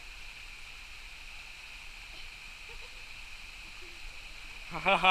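Steady high-pitched drone of cicadas in the bush. Near the end a man's voice calls out loudly.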